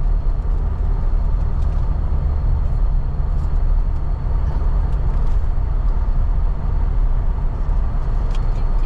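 Steady road and engine rumble heard from inside a moving vehicle's cabin while it drives along.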